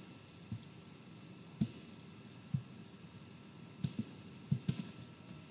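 Computer mouse clicking: about nine short sharp clicks at uneven intervals, several in quick succession near the end, over a faint steady hiss.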